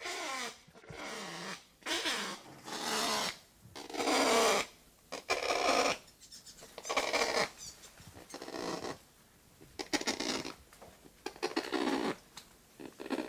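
Kakapo calling: a series of harsh squawks, each under a second long, coming about once a second.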